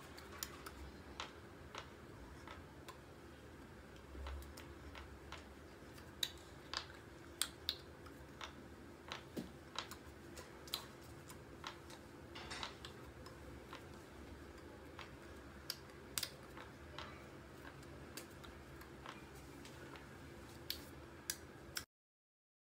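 Scattered sharp clicks and soft taps at an irregular pace over a faint steady hum: the small contact noises of a person signing, hands meeting and mouth clicking. The sound cuts off abruptly near the end.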